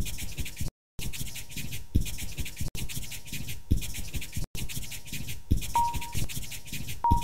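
Scratchy pen-on-paper drawing sound effect, with low thumps about every two seconds. Near the end come two short, high beeps at the same pitch.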